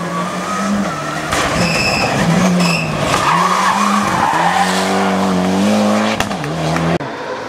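Turbocharged four-cylinder engine of a Mitsubishi Lancer Evolution rally car revving up and down through gear changes as it slides through corners, with tyres scrabbling and skidding on the loose surface. There is a brief high squeal about two seconds in and a few sharp pops near the end.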